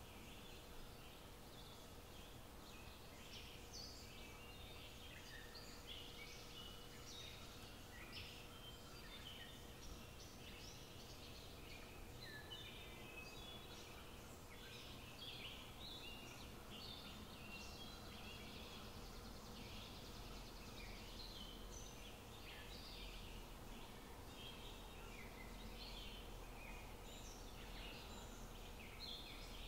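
Faint birdsong: many short, high chirps from small birds, overlapping throughout over a low steady hum.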